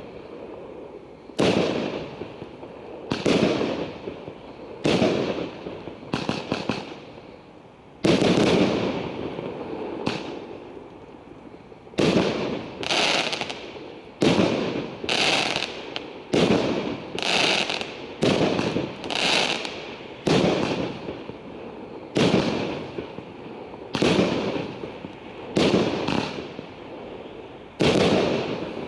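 A straight-up fireworks cake firing shot after shot, about twenty sharp bangs that each die away over a second or so. The shots come every one to two seconds, closer together in the middle.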